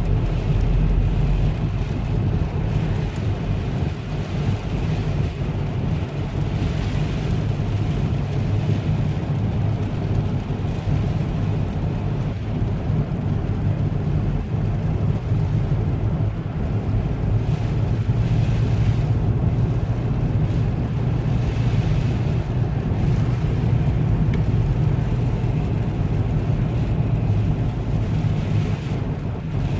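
Steady low rumble of vehicle noise, even throughout with no single event standing out.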